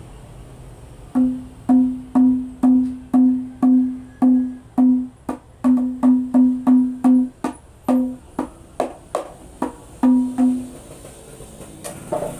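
A rebana frame drum played by hand: ringing open strokes with a clear pitch, about two a second and quickening to about four a second in the middle, mixed with shorter, sharper slaps. The playing stops about a second and a half before the end, leaving a few light knocks as the drum is handled.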